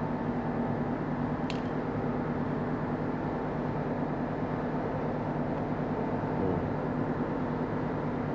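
Steady low machine hum with several steady tones, and one faint light click about a second and a half in.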